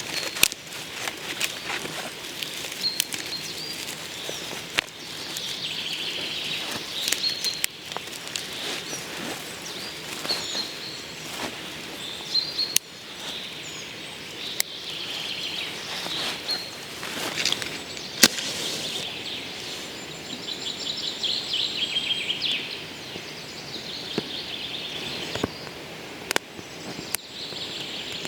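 Small forest birds chirping, with a trilling call about two-thirds of the way through, over scattered sharp clicks and crackles.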